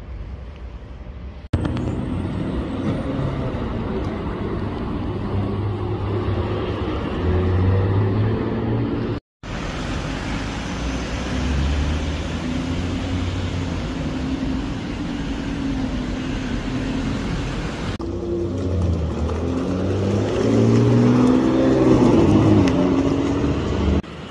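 Sports car engines accelerating hard, their pitch stepping up and down through gear changes, in several short clips joined by abrupt cuts that begin about a second and a half in. In the middle clip it is a Lamborghini Huracán's V10 driving past.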